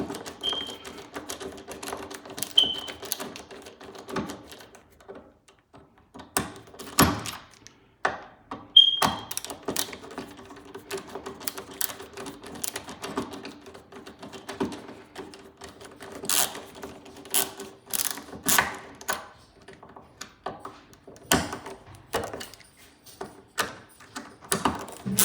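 Screws being tightened by hand with a screwdriver into a door's lock fittings: irregular clicks, taps and scrapes of metal on metal, over a faint steady hum.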